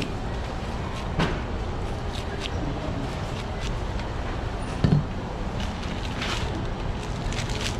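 Large kitchen knife cutting the rind off a pineapple in a series of short, sharp slicing strokes, over steady background noise. A louder knock about five seconds in as the knife or fruit is set down on the cutting board.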